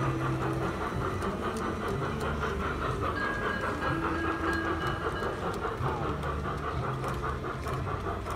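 Large-scale garden model train running along its track: a quick, even clatter from the small locomotive and its wagons.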